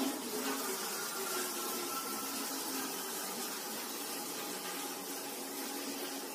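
Steady room tone: an even background hiss with a faint hum and no distinct event.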